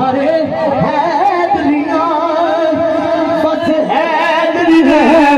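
A naat, Islamic devotional poetry, being sung: a voice carrying a slow melody in long, wavering held notes.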